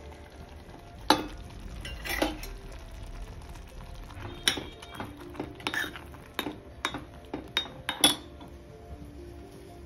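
A steel spoon stirring thick spinach and paneer gravy in a stainless steel pot, clinking and scraping against the pot about twice a second from about four seconds in. Two sharper metal clinks come earlier, about one and two seconds in.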